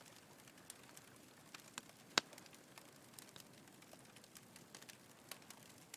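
Faint crackling of a campfire: a low hiss with scattered small pops, and one sharper pop about two seconds in.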